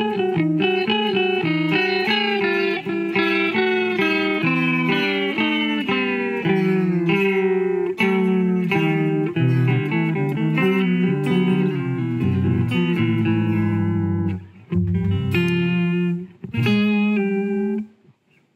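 Jazzmaster electric guitar played through an Old Blood Noise Endeavors Reflector pedal in harmonizer mode: a run of picked notes, each with a pitch-shifted copy sounding over the dry note, the shifted voice gliding in pitch as the pedal's pitch knob is turned. The playing breaks into a few shorter phrases with gaps near the end.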